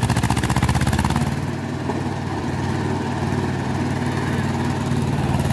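Mahindra tractor's diesel engine running hard under load as it strains to pull a heavily loaded coal trolley. It is loudest and harshest for the first second or so, then eases slightly but keeps labouring.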